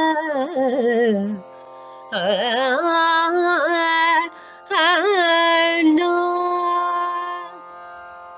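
A woman singing a slow Carnatic-style vocal line in long held notes with wavering ornamental glides, over a steady drone. The voice breaks off briefly twice and trails away near the end, leaving the drone.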